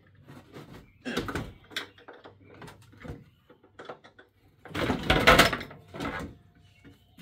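Hard plastic sections of a One Fast Cat exercise wheel being worked loose and handled, making clunks and rattles. There are two bursts: a short one about a second in and a louder, longer one around five seconds in.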